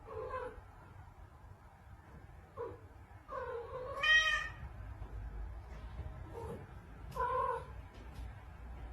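Domestic cat meowing several times in short calls, the loudest a high-pitched meow about four seconds in.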